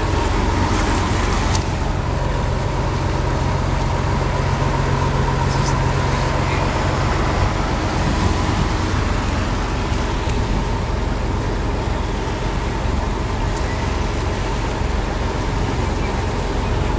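Small passenger boat's engine running steadily while under way, with a constant hum under a steady rush of wind and water noise.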